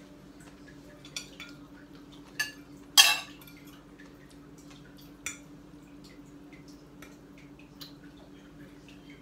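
A fork clinking against plates and a metal pan in a few sharp strikes, the loudest about three seconds in with a brief ring, over a steady low hum.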